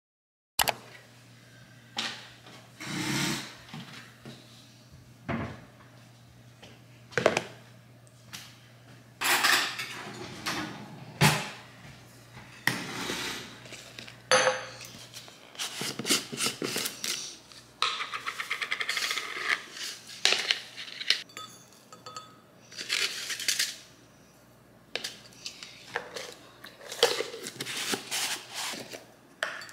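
Dishes and cutlery clinking and clattering: a long run of separate knocks and clinks, as from kitchenware being handled.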